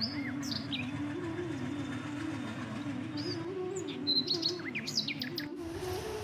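Small birds chirping in short sliding notes over a steady low rumble and wavering hum from a passing train; the rumble cuts off abruptly near the end.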